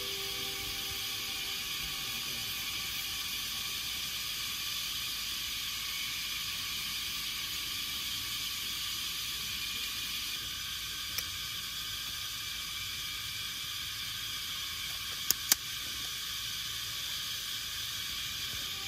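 Steady outdoor hiss, with three sharp clicks of the metal camping rack's poles and frame being handled: one partway through and a quick pair later on.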